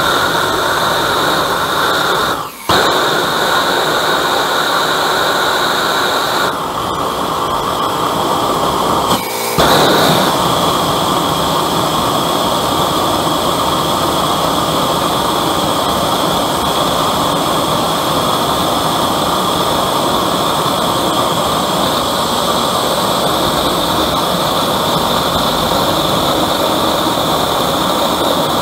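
Homemade oil-fired forge burner with a new nozzle design running on vegetable oil: a loud, steady rushing hiss of the burning jet. It dips briefly about two and a half seconds in, goes duller for a few seconds, then comes back full and holds steady.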